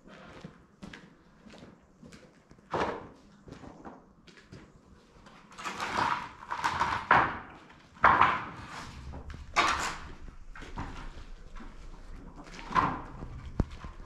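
Wooden boards being handled and laid on a concrete floor: a series of separate knocks, clatters and scrapes, busiest and loudest in the middle.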